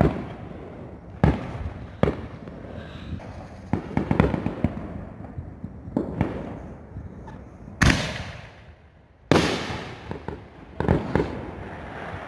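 Consumer fireworks going off: a string of sharp bangs at irregular intervals, several trailing off in a fading hiss. The two loudest come about eight and nine seconds in.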